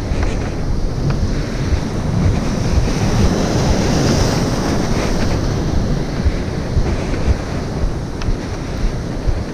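Wind buffeting the camera microphone over the wash of surf, with a wave breaking and splashing against a rock wall, loudest about three to five seconds in.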